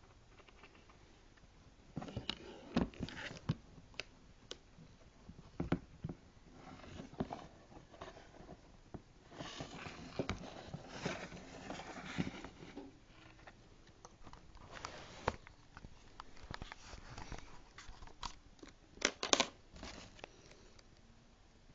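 Irregular clicks, taps and short scrapes of a Nokia 5800 XpressMusic phone's casing and small parts being handled while it is taken apart. The loudest is a quick cluster of sharp clicks near the end.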